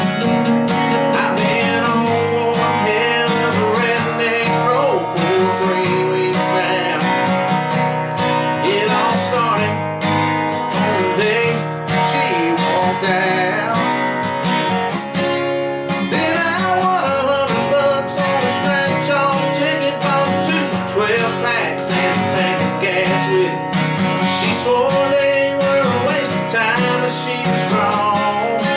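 Two acoustic guitars playing a country song together, strummed and picked.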